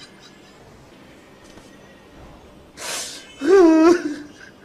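A man crying: a sharp gasping breath in about three seconds in, then a short, loud, wavering sob.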